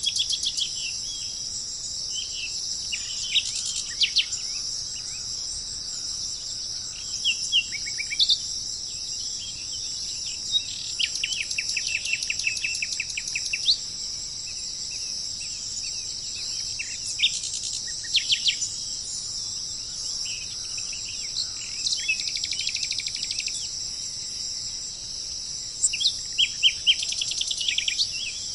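Small birds singing, with repeated short chirps and fast trills coming every few seconds over a steady high-pitched hiss.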